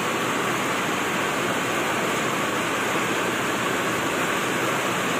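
A steady rushing hiss, even and unbroken, with no clicks or changes.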